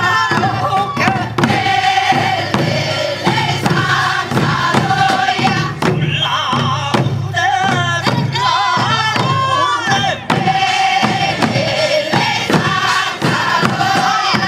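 A group of voices singing a Korean rice-planting field song (deulsori) in unison, with a buk barrel drum struck in a steady beat underneath.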